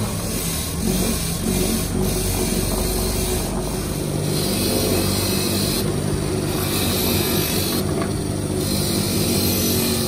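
Bench-mounted wire-brush wheel motor running steadily, with scratchy hissing bursts several times in the second half as a truck inner tube's metal valve stem is pressed against the spinning wire brush.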